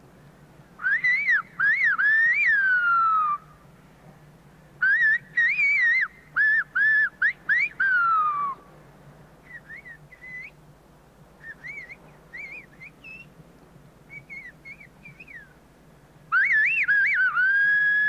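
Silbo Gomero whistled speech: a man whistles loud phrases through his fingers, sliding quickly up and down in pitch in word-like bursts. Fainter whistled phrases come in between, and a loud phrase at the end closes on a long held note.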